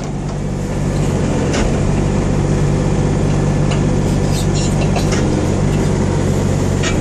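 Hitachi ZX35U mini excavator's diesel engine running steadily while its hydraulics are being worked, with a few light clicks.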